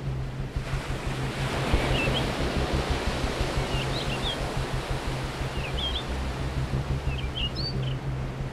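Added soundtrack: a low sustained hum under an even, surf-like wash of noise, with small clusters of short high chirps about every two seconds from about two seconds in.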